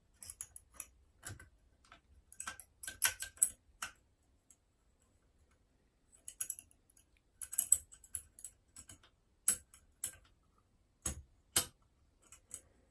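Small, irregular metallic clicks and ticks of a curtain pick working inside a Union Chubb 3G110 five-lever mortice lock, lifting the levers against tension. The clicks come in short clusters with brief pauses between.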